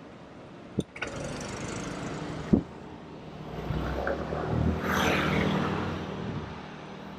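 A motor vehicle passes close by, its engine and tyre noise swelling to a peak and fading away over a few seconds. Two sharp knocks come in the first three seconds.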